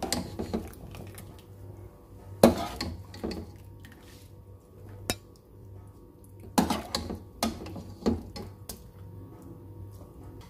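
A slotted spoon knocking and scraping against a cooking pot as boiled carrot pieces are lifted out of their liquid: a scattering of sharp clinks, the loudest about two and a half seconds in and a quick run of several more around seven to eight seconds in.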